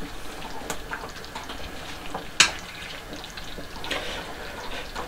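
Thick mushroom and sour-cream sauce simmering in a pot on the stove, with scattered small bubbling pops and one sharper click about two and a half seconds in.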